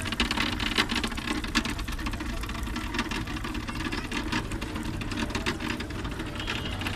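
Small motor and spinning turbine wheel of a tabletop pumped-storage hydro model running steadily, with a fast, irregular clatter of clicks.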